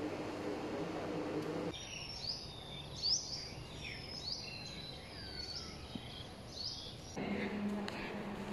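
Several birds chirping outdoors with quick rising and falling calls over a thin steady high whine, from about two seconds in to near the end. Before and after, a steady low room hum.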